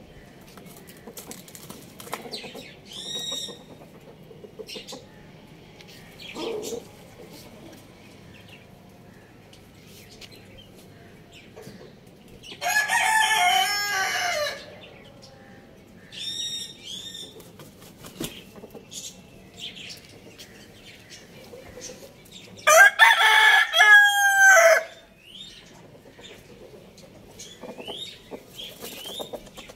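A rooster crowing twice, each crow about two seconds long, the first about 13 seconds in and the second, louder one about 23 seconds in. Quieter clucks and short high calls come in between.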